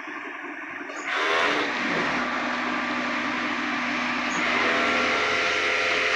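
A motor running with a steady hum that starts suddenly about a second in. Its pitch falls, holds level for a few seconds, then rises again before it cuts off suddenly near the end.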